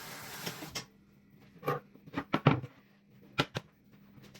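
Kitchen tap running into a cooking pot, shut off just under a second in, followed by several short knocks and clatters of the pot and utensils.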